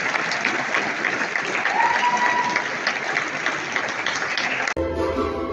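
Audience applauding, a dense patter of hand claps, cut off suddenly near the end by music with steady held notes.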